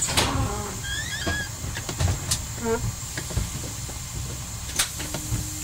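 The rebuilt Y1 railcar's Volvo diesel engines idling with a steady low rumble while standing still. Scattered clicks and a short chirping tone that repeats about every three seconds sound over it.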